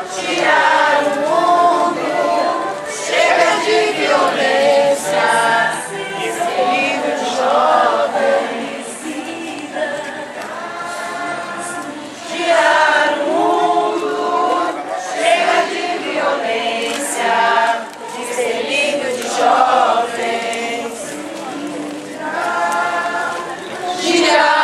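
A group of people singing together in chorus, phrase after phrase, with short dips between lines.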